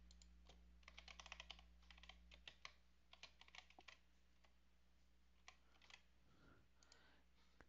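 Faint computer keyboard typing: short runs of key clicks, with a few lone clicks near the end.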